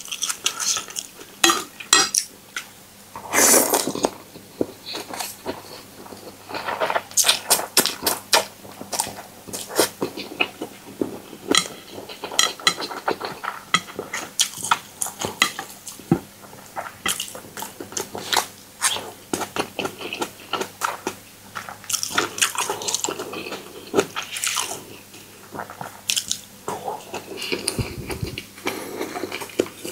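Utensils tossing and mixing a spicy instant-noodle salad in a bowl: irregular clinks and scrapes against the bowl, with soft wet stirring between them.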